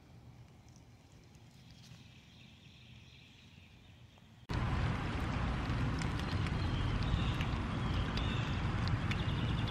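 Faint outdoor garden ambience with a few faint chirps, then about halfway in a sudden switch to a loud, steady rushing noise as rain falls harder.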